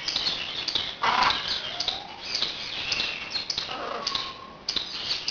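Birds chirping repeatedly in short high notes, with a louder call about a second in.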